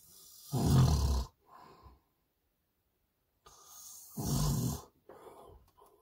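A sleeping man snoring, picked up by a phone inside a truck cab. There are two loud snores, about a second in and again past four seconds, each drawn in with a softer hiss and trailing off into a quieter breath.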